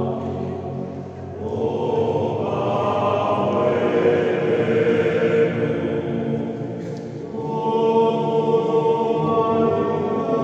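Sardinian men's choir singing a cappella in close harmony, holding long chords. The sound drops briefly about a second in and again around seven seconds, and a new full chord comes in after each drop.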